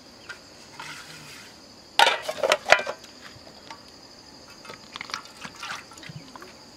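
Liquid poured from a plastic jerrycan into a metal bowl, splashing and trickling. The pour is loudest about two seconds in, with lighter pours and trickles near the end.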